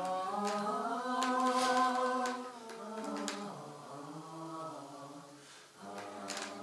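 A choir of several voices singing a slow song in long, held notes. It fades almost away about five and a half seconds in, then carries on faintly.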